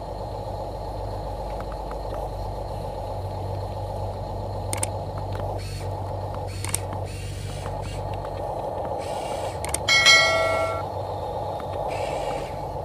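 Huina 1573 radio-controlled dump truck driving on dirt, its electric drive motor and gearbox giving a steady whine with a few small clicks. About ten seconds in, a brief loud tone with several overtones sounds.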